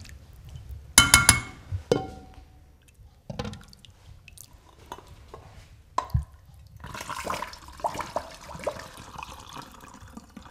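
A metal spoon clinks against a glass bowl of liquid about a second in, ringing briefly, with a smaller clink soon after. In the second half, limoncello is poured from a glass jug through a metal funnel into a bottle, a steady trickle of liquid.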